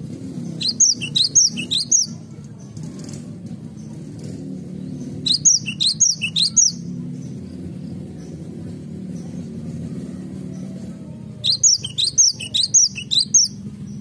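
Cinereous tit singing three short bouts, each a quick run of six to eight high, repeated down-slurred notes, a few seconds apart, over a steady low background hum.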